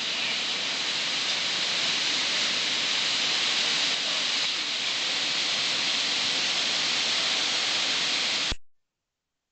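Heavy hurricane rain falling steadily on trees, a constant hiss that cuts off abruptly near the end.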